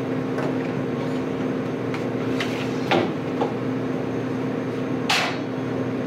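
A plastic dish rack being set down on a stainless steel drying rack atop a dishwasher: a few short knocks and clatters, the sharpest about three seconds in, over a steady background hum.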